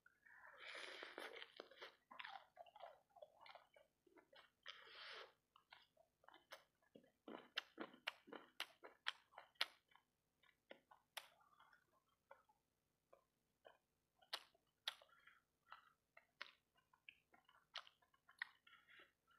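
A person chewing fried rice balls coated in sauce, with a longer crunching stretch at the start and then many short, wet mouth clicks and smacks at an irregular pace.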